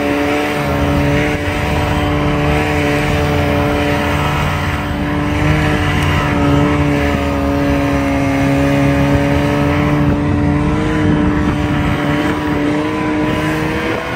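Snowmobile engine running at a steady speed, a steady pitched note that sags slightly midway and breaks off near the end.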